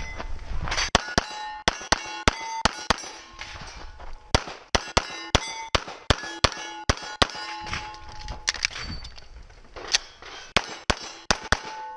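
Rapid 9mm pistol shots from a CZ Shadow 2, about three a second in quick strings, each answered by the clang of a steel target plate ringing on the hit. The shooting breaks off briefly twice, once around four seconds in and again shortly after eight seconds.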